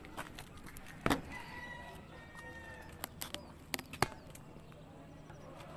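Scattered sharp clicks and knocks of a hand tool on the metal fittings of a machine's control panel, the loudest about a second in and a quick cluster around three to four seconds in.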